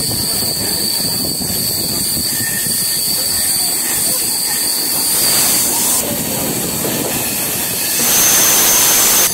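Passenger train running, heard from on board: a steady rumble of wheels on rail with rushing air. It grows louder about eight seconds in as the train passes into a tunnel.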